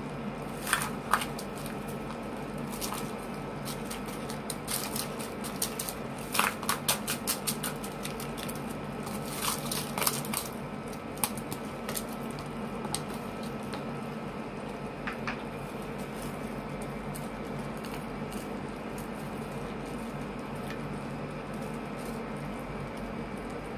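Mixed vegetables spooned into a pan of simmering coconut milk: scattered sharp taps and clicks of the spoon and vegetables, in clusters about a second in, around six to seven seconds in and around ten seconds in. A steady low hum runs underneath.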